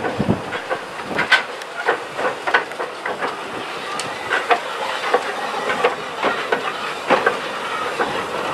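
Andrew Barclay 0-4-0 saddle tank steam locomotive moving slowly past, with irregular clanks and clicks from its wheels and motion over the rail joints and a steady hiss of steam.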